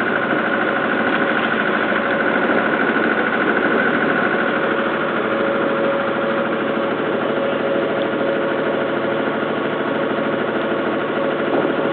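Small river ferry boat's engine running steadily while under way, one unchanging drone holding the same pitch throughout.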